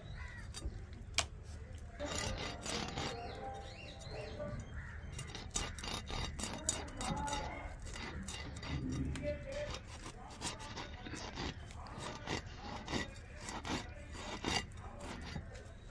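Scales being scraped off a tongue fish (sole) against a floor-mounted cutting blade, in many quick, irregular scraping strokes that start about two seconds in.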